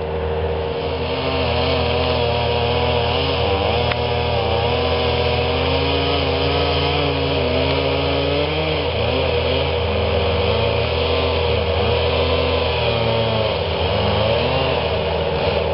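Bobcat skid-steer loader's engine running steadily, its pitch wavering up and down.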